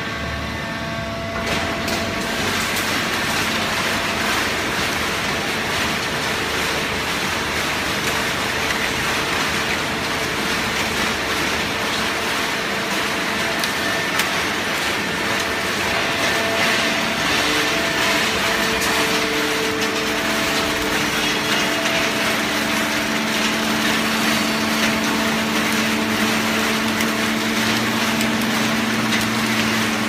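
Fully automatic horizontal hydraulic cardboard baler running: a steady mechanical din with a hum from its motor, the low hum growing stronger in the second half.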